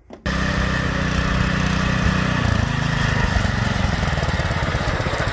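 DuroMax 208cc single-cylinder engine on a lawn-tractor go-kart running steadily as the kart is driven, held back by its stock governor at about 3,600 RPM. The engine note shifts about halfway through.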